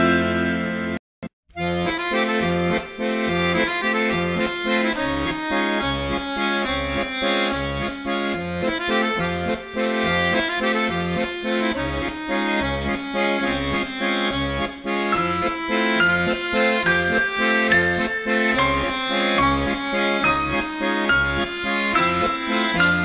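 Instrumental music with a steady, regular bass beat under a melody. It breaks off briefly about a second in, then starts again.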